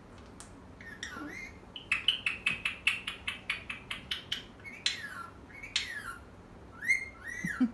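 Pet parrot chattering: a quick run of about a dozen short chirps, about four a second, then two falling whistles and two short rising-and-falling whistles near the end.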